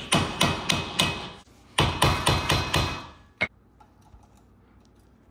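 Hammer blows on a hand impact driver seated in the factory screws that hold the brake rotor to the hub, striking them to break the screws loose. There are two quick runs of about half a dozen blows each, then a single sharp metallic click at about three and a half seconds.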